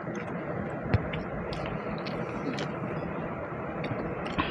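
Eating at a plate over a steady background rush: scattered light clicks and one sharp tap about a second in.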